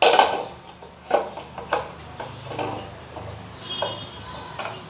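Metal knocks and clanks of a stainless-steel gas stove being handled on a counter: a sharp knock at the start, then a few lighter knocks and taps.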